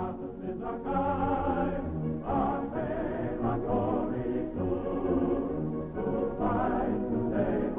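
Choral singing with orchestral accompaniment: sustained sung notes that change every half second or so.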